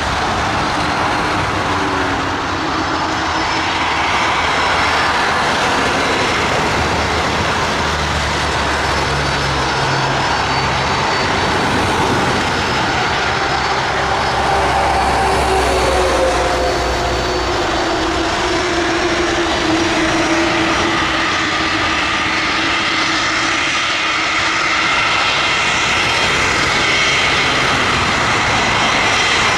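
Airbus A300 freighter's two turbofan engines running at low taxi power as the airliner rolls along the ground: a steady jet whine whose tones drift slowly up and down in pitch over a continuous rush of noise.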